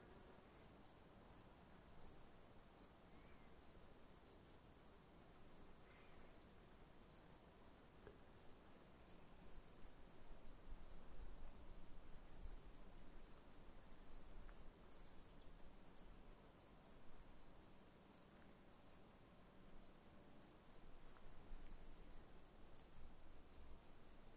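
Crickets chirping faintly: a steady high trill with a rapid run of repeated chirps just below it.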